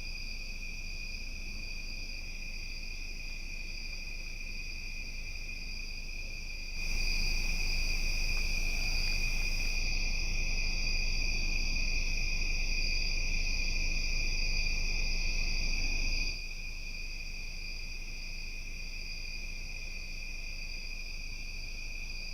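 Steady, continuous chorus of crickets trilling at a high pitch over a background hiss. About a third of the way through, the whole sound steps up louder with more hiss, then drops back down about two-thirds through.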